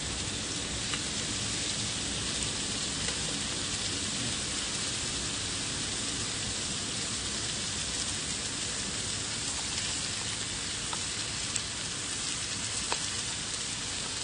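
Slices of pork belly sizzling steadily on a hot griddle, with a few small pops and crackles.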